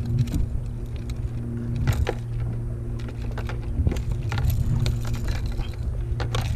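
Irregular metallic clicks and clinks of pliers and the lure's hooks as a bluefish is unhooked, over a steady low hum.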